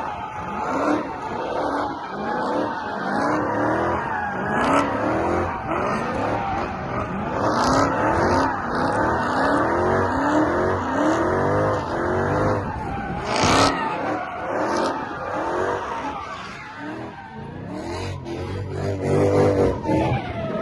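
Car engine revving in repeated rising sweeps, roughly one a second, over a steady rush of tyre noise.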